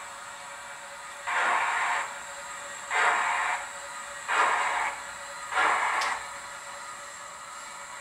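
Slow steam exhaust chuffs from the DCC sound decoder in a 00 gauge Hornby model of a Bulleid Merchant Navy class locomotive, played through its small loudspeaker as the model moves slowly. There are four chuffs, evenly spaced about a second and a quarter apart.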